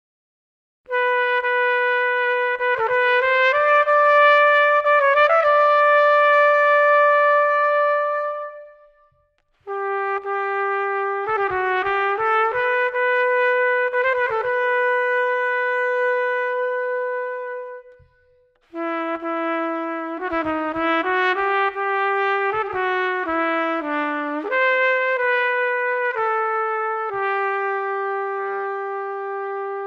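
Solo trumpet playing a melody in three phrases, with short pauses between them. Each phrase mixes quick runs of notes with long held tones, and the last one settles onto a long low note.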